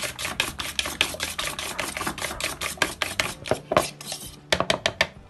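Fork whisking beaten eggs in a bowl: rapid, even clicks of the fork against the bowl, about eight strokes a second, breaking off near the end with a few last taps.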